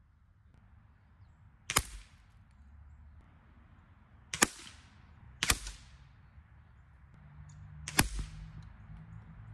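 Four sharp cracks from a suppressed .177 Stroger 5800E-Tac air rifle firing, heard from a distance. The shots come about two seconds, then one, then two and a half seconds apart, and each is short and quiet.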